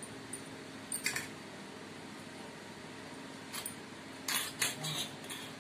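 Steel spoon and knife clinking and scraping against stainless-steel plates as roasted brinjals are stuffed with masala. There is a short clatter about a second in and a run of sharper clinks near the end, over a low steady hum.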